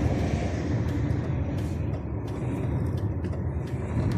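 DAF truck's diesel engine running rough at low speed with an uneven low pulsing: it is misfiring on one cylinder.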